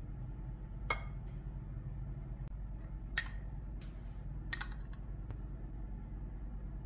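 Three sharp clinks of a spoon and glass bowl, the second one loudest, over a steady low hum.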